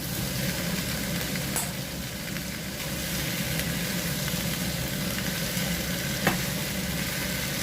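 Blanched chicken middle wings frying in a hot pan with mushrooms and celery: a steady sizzle as the food is stirred, over a steady low hum. Two brief clicks, about a second and a half in and again about six seconds in.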